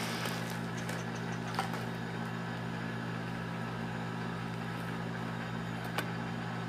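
A steady low hum, with a few faint clicks and rustles as a graphics card is slid out of its bubble-wrap packaging. The clicks come about a second and a half in and again about six seconds in.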